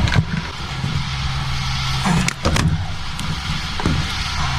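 A steady low mechanical hum with a hiss over it, and a few short knocks, the clearest about two seconds in.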